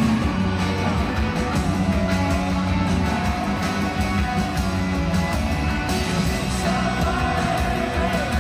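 Live rock band playing, with guitars, drums and a sung vocal over a steady, full mix.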